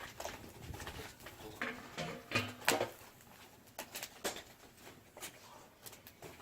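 Scattered clicks and light knocks at an uneven pace, loudest about two and a half seconds in.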